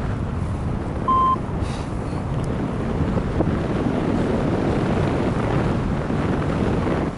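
Wind buffeting the microphone in flight, a steady low rushing. A single short, high electronic beep sounds about a second in.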